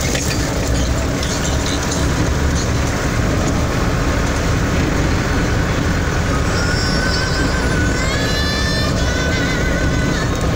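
Steady rumble of a large vehicle driving on a gravel road, heard from inside the cab: engine and tyre noise on the loose surface.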